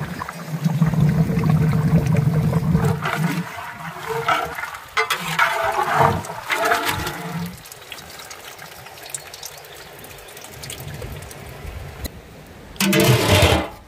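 A large metal pot of beef paya curry boiling hard, bubbling and steaming, with a ladle stirring through the thick curry about halfway through. A short, loud burst of noise comes near the end.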